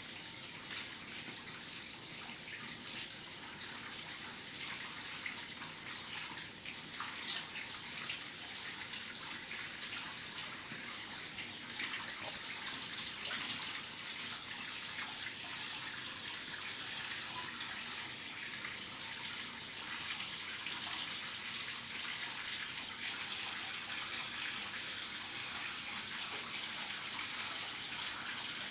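Tap water running steadily into a bathtub, a little louder from about twelve seconds in.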